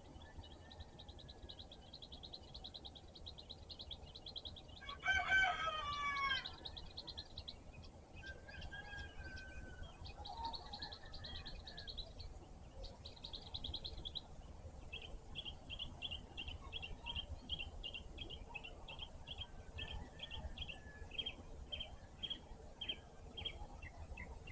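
A rooster crows once about five seconds in, the loudest sound. Songbirds sing throughout, with rapid high trills in the first half and a steady series of repeated high notes, about two a second, in the second half.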